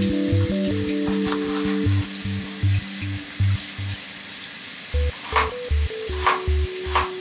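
A chef's knife cutting through a carrot onto a wooden cutting board, four cuts in the second half. Under it run a steady hiss of tap water and background music with a steady beat.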